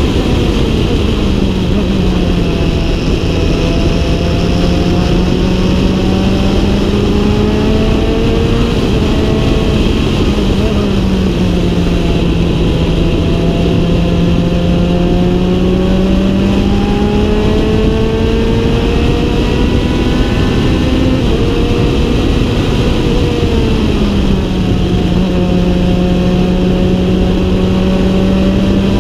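Norma M20F sports prototype's engine pulling hard through the gears, heard from inside the open cockpit with wind noise. The engine pitch climbs slowly and drops sharply at an upshift about a second in, again around eleven seconds, and again near twenty-four seconds.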